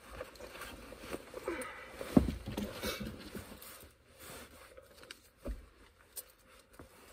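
Rustling and handling noises of coat fabric and a small puppy being picked up and held, with a soft thump about two seconds in and another about five and a half seconds in.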